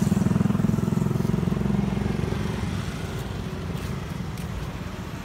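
A vehicle engine runs close by with a fast, even throb and grows steadily fainter over the few seconds.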